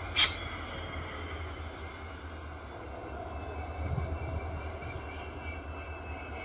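Diesel locomotive hauling a container freight train slowly past, its engine a low pulsing rumble, with a thin high squeal that slides slowly down in pitch and then holds. A single sharp knock sounds just at the start.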